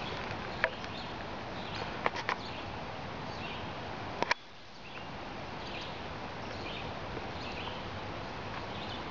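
Outdoor creek-side ambience: a steady hiss with faint, repeated high chirps and a few sharp clicks near the start and about four seconds in. Just after the later clicks the background drops suddenly and creeps back up within a second.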